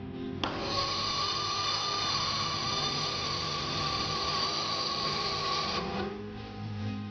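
A power tool runs at a steady speed with a constant whine, starting abruptly about half a second in and cutting off near six seconds, over background music.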